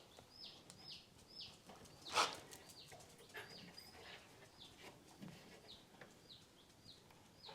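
Faint, short, high chirps from a small bird, each dropping in pitch, repeating about twice a second. A single knock about two seconds in.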